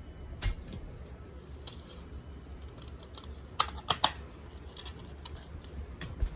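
Plastic smoke alarm cover being handled and snapped back onto the alarm: scattered light clicks and taps, the sharpest two close together about four seconds in.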